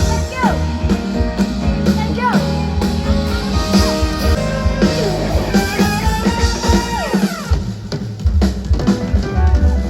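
Live band playing loud pop-rock music: drum kit with heavy bass drum and snare hits, with guitar and sliding pitched notes over it. The low drums thin out briefly near the end, then come back in.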